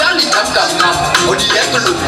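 Dance music with a vocal line over a beat, played loud by a DJ for a dancer.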